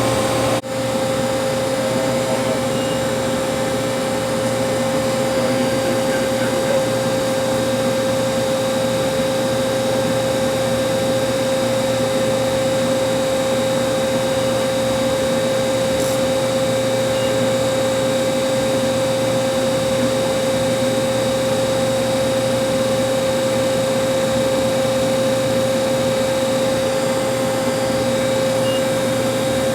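Hardinge Conquest CNC lathe idling under power: a steady machine hum with a constant whine, dipping briefly just under a second in.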